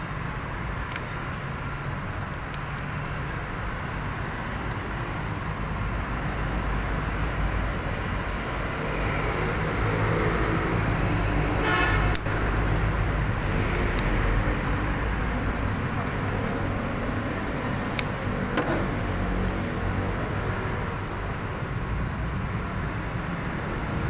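Steady low traffic and workshop rumble. Near the start, a multimeter's continuity beep sounds for about three seconds, the sign that the wire under test is intact. A few sharp clicks of handling follow later.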